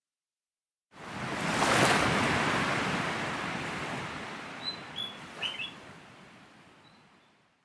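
An ocean wave washing in and slowly ebbing, swelling up sharply about a second in and fading away, with a few short high bird chirps about four to six seconds in.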